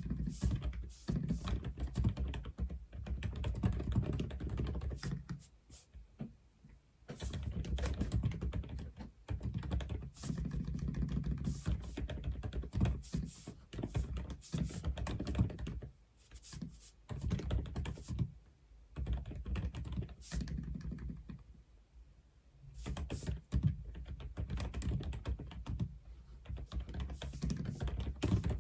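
Aula F87 mechanical keyboard being typed on in fast runs of deep-sounding keystrokes, broken by short pauses of a second or two.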